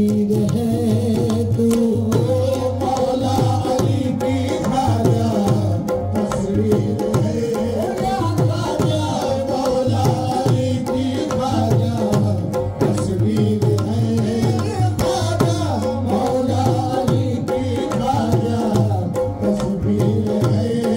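Live qawwali music: tabla playing a fast, driving rhythm under steady held melodic notes.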